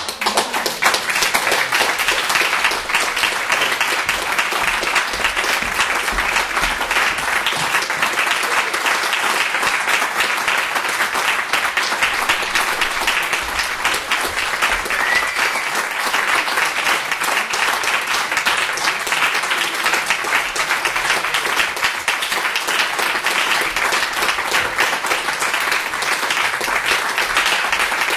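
Theatre audience applauding steadily, many hands clapping at once, breaking out suddenly at the start.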